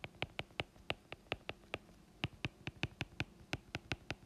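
Hard stylus tip tapping and clicking on an iPad's glass screen while handwriting chemical formulas: quick, uneven clicks, several a second.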